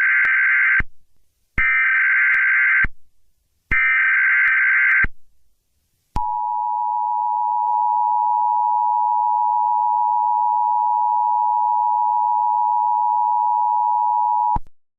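Emergency Alert System signal: the end of one and then two more of the SAME header data bursts, each a raspy, warbling electronic screech about a second long, followed by the steady two-tone attention signal held for about eight seconds and cutting off abruptly. Together they mark the start of a new emergency alert broadcast.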